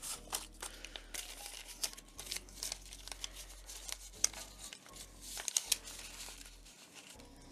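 Paper banknotes and clear plastic binder envelopes rustling and crinkling as cash is handled and slid into a pocket of a budget binder, with scattered small clicks and taps.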